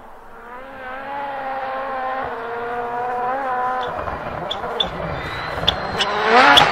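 Toyota Yaris WRC rally car's 1.6-litre turbocharged four-cylinder engine approaching at speed, its note growing steadily louder. A few sharp cracks come in about four seconds in, and near the end the engine revs up hard as the car arrives.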